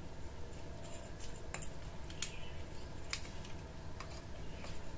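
Light, scattered clicks and taps of a screwdriver, wire ends and a plastic electrical socket being handled while wiring a bulb holder to the socket, about five small clicks spread over the few seconds.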